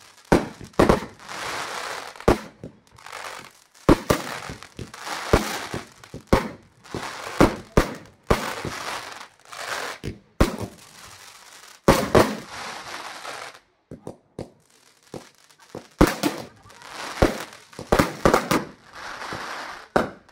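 Aerial fireworks bursting in the sky: sharp bangs every half second to a second, each trailed by about a second of sizzling noise from the bursting stars, with a lull of about two seconds roughly two-thirds of the way through.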